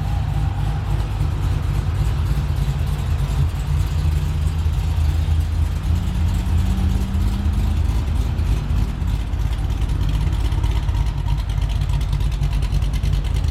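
Cadillac CTS-V's V8 engine running with a steady low rumble.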